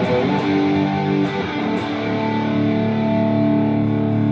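Overdriven electric guitar with P-90 pickups, played through a ToneKing Royalist preamp's 1967-mode channel boosted by a Spaceman Redstone, heard through powered speakers. A quick run of picked notes is followed about two seconds in by a low chord left ringing, with a hot-rodded Marshall-style crunch.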